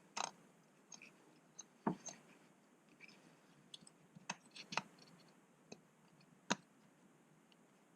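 Faint, scattered clicks and scrapes of a hand pushing a plastic electrical connector back onto a Honda K24 engine's knock sensor, with a few sharper clicks, the strongest a little under two seconds and about six and a half seconds in.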